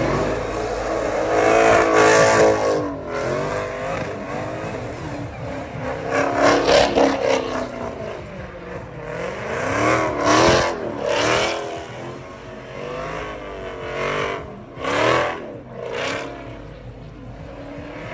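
Car engine revving hard, its pitch climbing and dropping over and over as the car spins donuts in a smoky burnout. It swells loud every few seconds as the car circles past.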